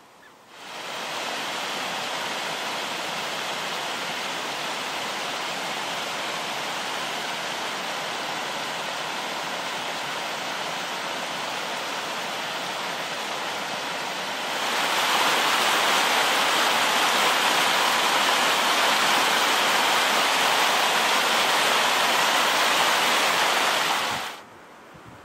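Steady rush of water, even and without rhythm. It starts about half a second in, turns louder about halfway through and cuts off abruptly near the end.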